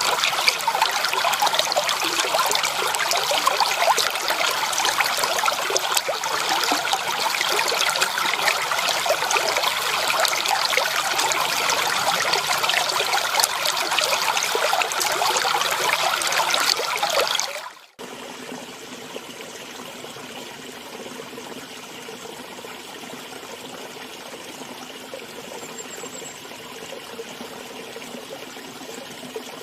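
Stream water babbling and trickling over stones, loud and busy. About two-thirds of the way through it fades out and gives way to a quieter, gentler flowing stream.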